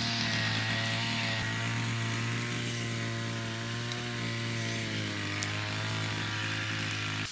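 A small motor running steadily at one pitch with a slight waver, cutting off suddenly near the end.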